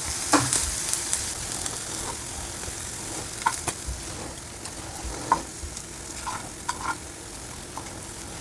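Metal kitchen tongs clicking and tapping against a ceramic plate as slices of fried halloumi are laid on a salad, about half a dozen short clicks, some with a brief ring, over a steady hiss.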